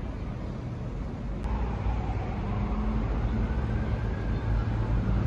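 City street traffic: a steady engine rumble that grows louder toward the end as a vehicle passes, with a faint whine that rises and falls. A single sharp click about a second and a half in.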